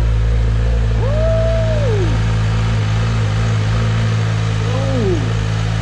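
Suzuki GSX-R sportbike's inline-four engine idling steadily. Two smooth higher tones rise and fall over it, one about a second in and a shorter one near the end.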